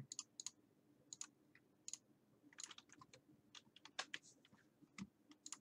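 Faint, scattered, irregular clicks of a computer keyboard and mouse being used.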